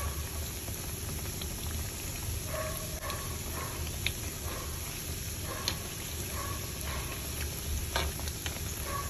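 Egg-coated potato patties (bergedel) deep-frying in a pan of hot oil: a steady sizzle with scattered small pops and crackles.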